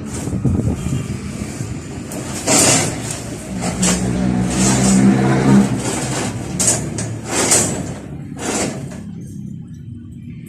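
A motor vehicle engine running, strongest for a couple of seconds in the middle, with several loud sharp knocks scattered through it.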